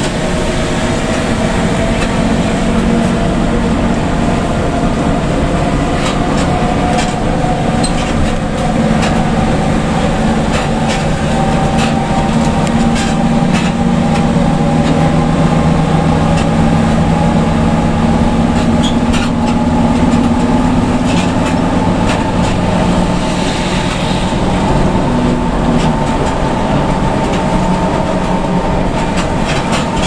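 Hino RK bus engine running under way, heard from inside the cabin, with a whine rising slowly in pitch and scattered clicks and rattles over a steady road noise.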